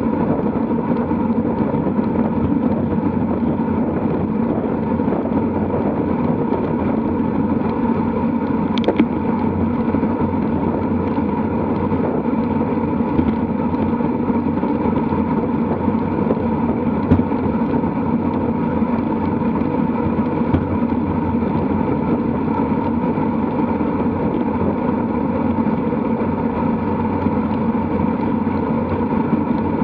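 Steady rush of wind over a bicycle-mounted camera's microphone, mixed with tyre hum, while riding in a group of road cyclists at about 45 km/h. A single brief click about nine seconds in.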